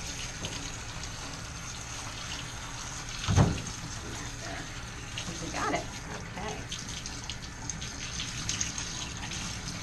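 Water spraying steadily from a hand-held grooming hose, rinsing shampoo out of a wet dog's coat in a stainless-steel tub. A single loud thump about three and a half seconds in.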